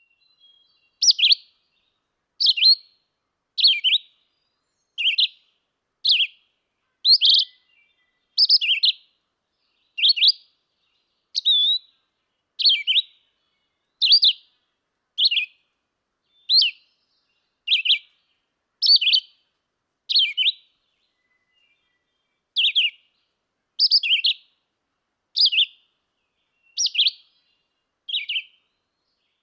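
Red-eyed vireo singing: a long series of short, varied whistled phrases, about one every second and a half, each separated by a brief pause, with a slightly longer pause about two-thirds of the way through.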